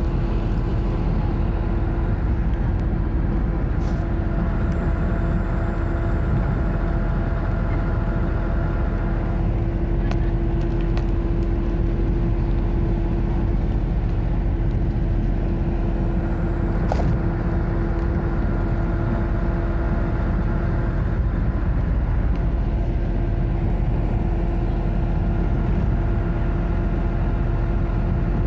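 Steady engine and road noise heard from inside a moving vehicle, a low rumble with a constant hum over it.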